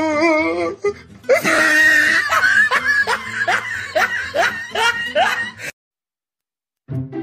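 A person laughing hard, a rapid string of rising 'ha' sounds about two or three a second, which breaks off abruptly into dead silence. Music with a plucked bass starts just before the end.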